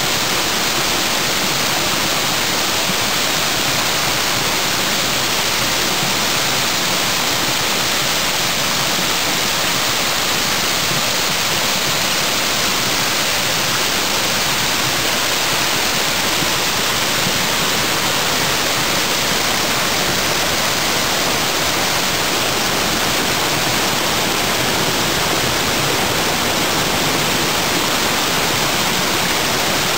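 Cascading stream waterfall, spring water pouring over a rock ledge, with a steady, even rush of falling water.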